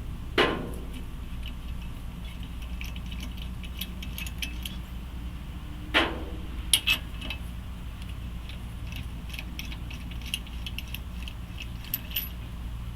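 Metal tools and parts being handled: light clinks throughout, with two sharper clanks that ring briefly, about half a second in and about six seconds in, over a steady low hum.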